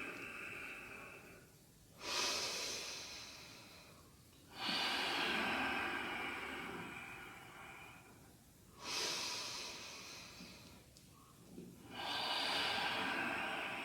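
A person taking slow, deep breaths in and out while holding the yoga cobra pose (bhujangasana). Each breath starts sharply and trails off over two or three seconds, with new breaths beginning about two, four and a half, nine and twelve seconds in.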